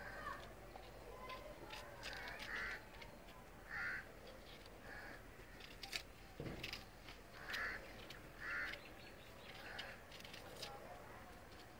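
Crows cawing several times, short harsh calls spaced irregularly a second or more apart, over light clicks and scrapes of a small knife peeling and cutting onions.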